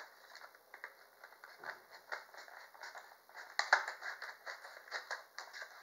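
Scissors cutting through a stiff plastic blister pack: irregular snips and crackles of the hard plastic, with a cluster of louder ones about two-thirds of the way through.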